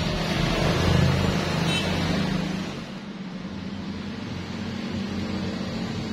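Steady motor or engine hum with a broad rushing noise, louder for the first two or three seconds and then easing off a little.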